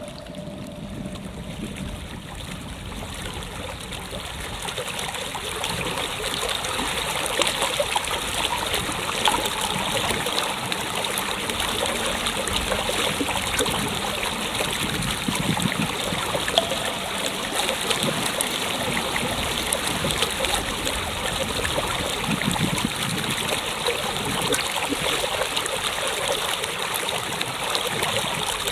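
A steady rush of running water that swells over the first few seconds and then holds.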